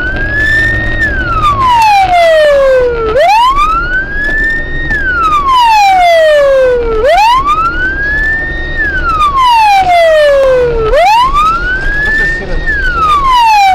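Police car siren in a slow wail: each cycle rises quickly, holds for about a second, then falls away slowly, repeating about every four seconds. It is heard from inside the patrol car over the low rumble of its engine and tyres.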